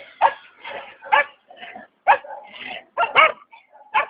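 A dog barking over and over in a run of short, loud barks, roughly one every half second.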